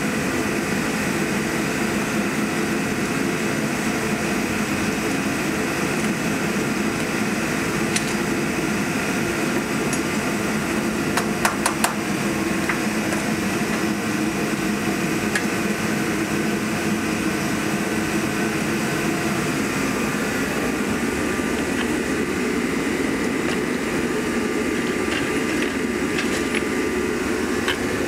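Steady mechanical drone, like a running fan or heater motor, with a few sharp metal clinks from hand tools on the tractor's hydraulic lift cover, a cluster of them about eleven to twelve seconds in.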